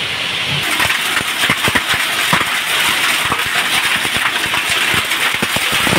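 Heavy rain driven by strong wind, with a dense, irregular crackle of drops striking hard surfaces close by.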